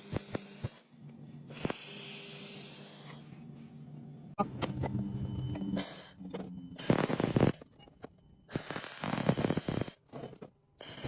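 Electric arc welding: the arc sizzles and crackles in several bursts of a second or so, stopping and restarting, over the welding machine's low hum.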